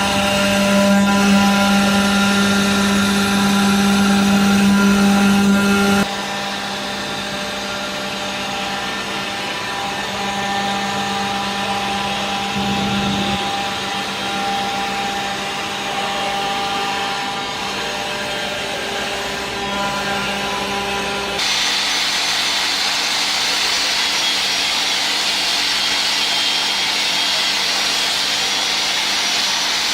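Stone-processing machinery running steadily, with a humming tone in the first few seconds. The sound changes abruptly twice, about six seconds in and again near twenty-one seconds, and the last part turns to a loud high hiss with a thin whine.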